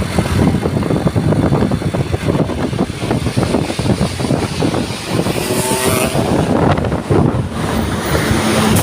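Large bus engine running loudly close by, a rough, rumbling noise with a brief pitched sound a little past halfway.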